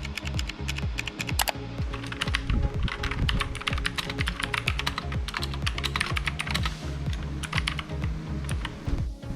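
Typing on a MageGee MK1 mechanical keyboard with clicky blue switches: runs of rapid keystrokes, densest in the middle and thinning out near the end.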